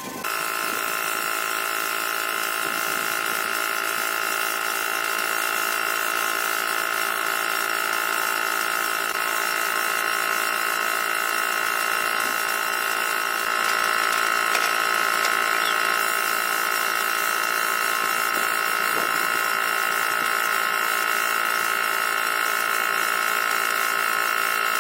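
A small electric motor, as in a handheld power tool, running continuously with a steady high-pitched whine. It gets slightly louder about halfway through.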